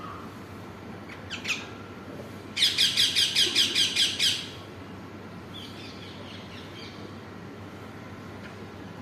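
A parrot squawking: a short call about a second and a half in, then a quick run of about nine loud squawks over two seconds, and a fainter call near the middle, over a steady background hiss.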